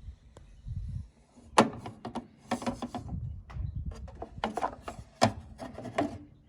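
Irregular knocks and scraping of hard objects being handled, with a sharp knock about a second and a half in and another near the end.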